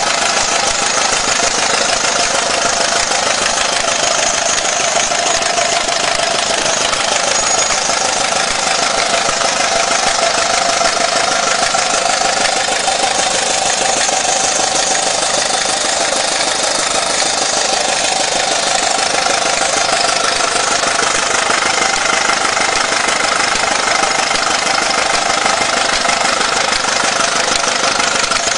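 Miniature model traction engine running steadily, its engine knocking at a fast, even beat.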